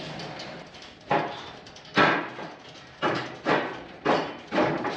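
Steel pallet forks being shifted by hand along a skid steer fork carriage: about five metal clunks and knocks, each ringing out briefly.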